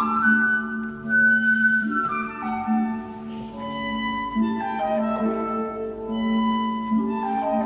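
Slow classical music: a melody of held notes moving over a sustained low note.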